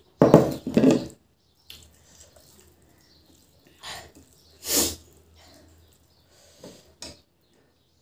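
Close-up eating sounds. Early on a plate is set down on the wooden table, then fingers mix rice in a steel plate, with a couple of sharp sniffs of breath from eating spicy food.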